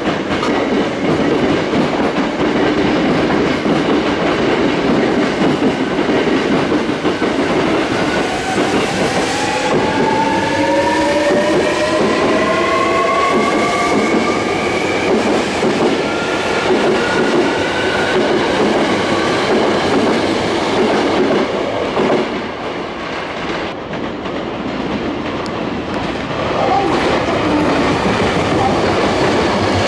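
Hankyu electric train moving along the platform, with wheels clattering on the rails. About eight seconds in its motors start a whine that climbs steadily in pitch for several seconds as the train gathers speed. The sound eases for a few seconds near the end, then picks up again.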